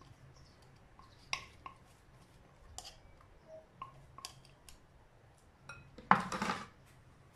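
A plastic spatula scraping and tapping against a small plastic food-chopper bowl, a few light scattered clicks, then a louder clatter of utensil and bowl about six seconds in.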